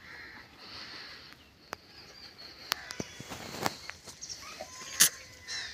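Birds calling in the yard, with scattered sharp clicks and footstep scuffs; the loudest click comes about five seconds in.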